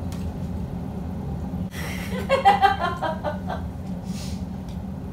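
A person's short chuckle about two seconds in, over a steady low hum.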